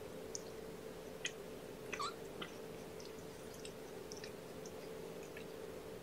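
Faint wet clicks and smacks of a mother cat licking as she grooms, scattered irregularly and loudest about two seconds in, over a steady low electrical hum.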